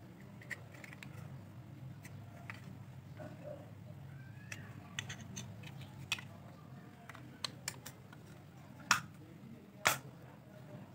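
Black plastic phone-charger case being handled and fitted together: small plastic clicks and scrapes, then two louder sharp clicks near the end as the halves snap shut, over a steady low hum.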